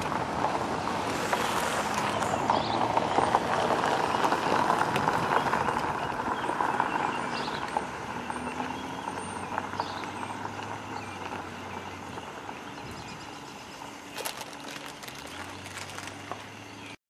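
Steel wheels of loaded freight cars rolling over curved track, with a rumble and a run of clicks over the rail joints. The sound swells over the first few seconds, then fades steadily as the train draws away.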